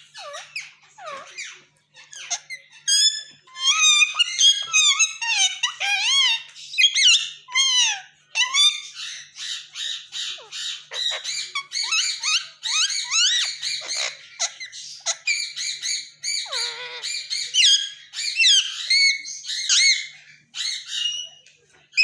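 Indian ringneck parakeet chattering up close: a fast, nearly unbroken run of squeaks, chirps and whistled notes that slide up and down in pitch. It starts with a few scattered calls and becomes dense after a few seconds.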